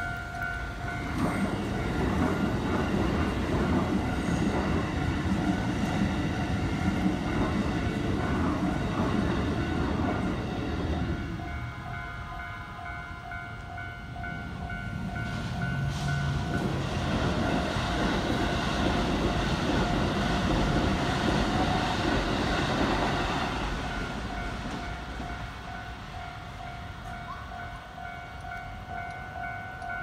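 Keikyu electric trains running past on the line twice, with rumble and wheel clatter, the first pass lasting about ten seconds from the start and the second starting about fifteen seconds in. A level-crossing warning bell rings steadily throughout.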